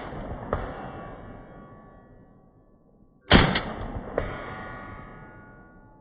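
Vz.52/57 semi-automatic rifle firing 7.62×39 mm rounds: a shot about three seconds in, with the ringing tail of another fired just before. Each shot is followed by a second sharp crack under a second later and a long, slowly fading ringing echo.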